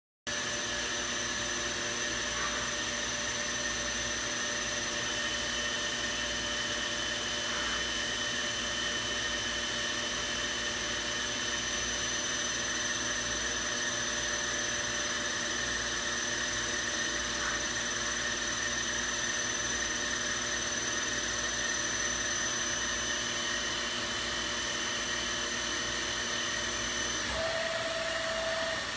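Milltronics RW15 CNC vertical machining center powered up and running, a steady whirring hum with several high, steady whines. About a second and a half before the end the highest whine stops and a lower tone starts.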